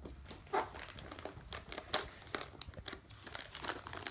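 Gift wrapping paper crinkling and crackling in a child's hands as a present is unwrapped, in irregular sharp rustles, the loudest about two seconds in.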